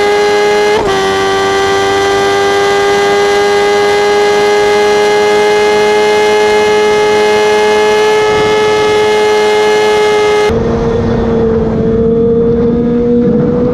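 Sport motorcycle engine held at very high revs at speed, a loud, steady high-pitched wail that climbs slowly in pitch. About ten seconds in it gives way to a Kawasaki ZX-25R's inline-four revving high with wind noise.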